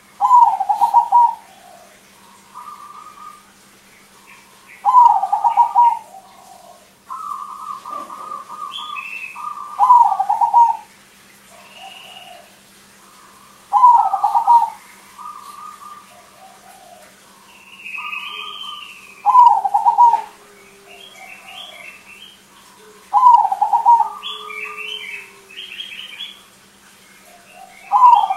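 Caged zebra dove (perkutut, a crossing-bred bird) singing its trilled, staccato coo. A loud phrase comes about every four to five seconds, with fainter, higher calls between.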